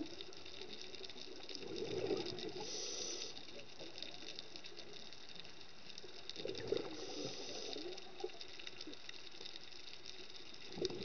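Scuba diver breathing through a regulator underwater: twice, a drawn breath is followed by a gush of exhaled bubbles, with faint crackling throughout.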